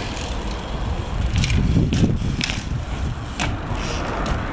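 BMX bike riding: tyres rolling with a low rumble, and several sharp clacks in the middle of the stretch.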